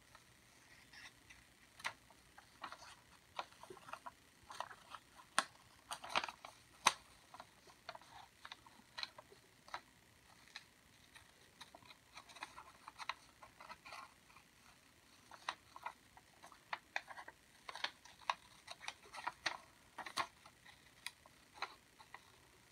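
Scissors cutting out a paper flower shape: many short, irregular snips, with the paper rustling as it is turned.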